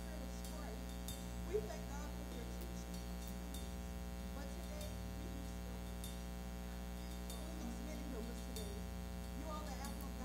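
Steady low electrical hum, with faint, indistinct voices and a few small clicks underneath.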